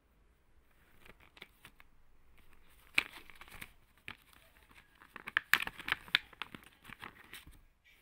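Plastic blister pack of a small pet nail clipper being torn and crinkled open by hand: a run of sharp crackles and snaps, loudest about three seconds in and again around five and a half to six seconds.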